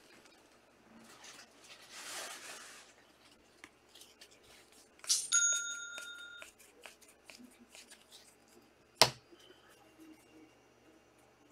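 Trading card packs and cards being handled: soft rustling of wrappers and small clicks of cards being sorted. A short bell-like chime rings for about a second about five seconds in, and a single sharp click comes about nine seconds in.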